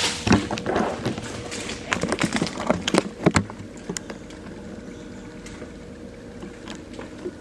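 Groceries and kitchen items being handled and set down: a quick run of knocks and clatters over the first three seconds or so, then a faint steady hum.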